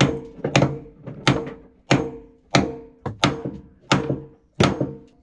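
Steady hammer blows, one about every two-thirds of a second, each with a short metallic ring, driving a tight-fitting new keel axle through a swing keel's pivot.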